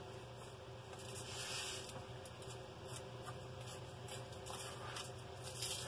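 Faint scratching and rubbing of a spoon stirring a dry rub of brown sugar, salt and spices in a plastic container, swelling a little now and then, over a steady low hum.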